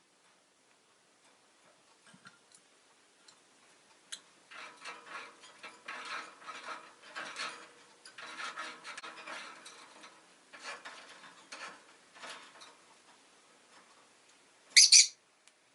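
Several seconds of dry rustling and scraping with quick irregular ticks, then one short, sharp, loud call from a rosy-faced lovebird near the end.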